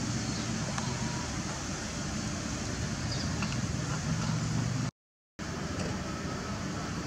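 Steady outdoor background noise with a low hum. It drops out completely for about half a second around five seconds in.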